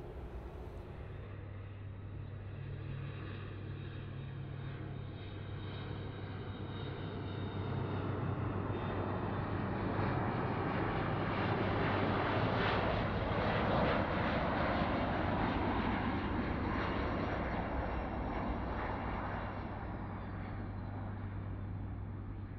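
Avro RJ85's four turbofan engines whining on final approach. The sound builds to its loudest about halfway through, then eases off, and a high whine drops in pitch near the end.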